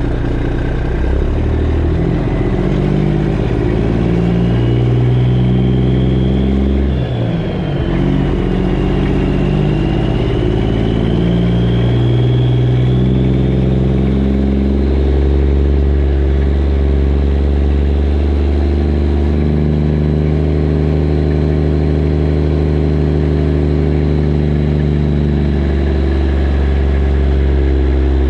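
Straight-piped Detroit Diesel Series 60 inline-six in a Freightliner Classic XL running loud under load, its exhaust note stepping in pitch and dipping briefly about seven seconds in.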